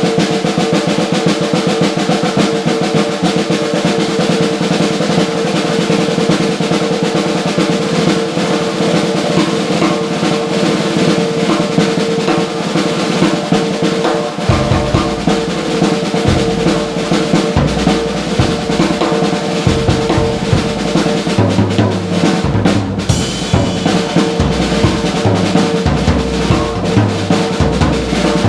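Blue Ludwig drum kit played in a loud improvised solo. It opens with fast, dense snare strokes like a roll, and about halfway through the bass drum comes in under the snare and cymbal hits.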